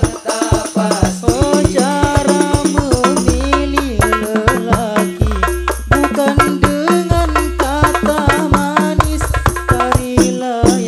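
Hadroh (sholawat) music: a group of rebana frame drums playing a fast, dense rhythm with deep bass-drum notes, under a sung melody.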